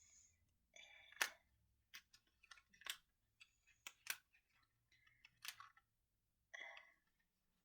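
Faint handling of an advent calendar's cardboard compartment and the packaging inside: a scattering of sharp clicks and a few short rustles as a small item is worked loose.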